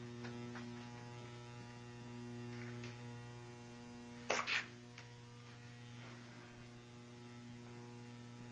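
Steady low electrical hum with evenly spaced overtones, the background hum of a starship interior. A short, sharp double crackle cuts through it about four seconds in.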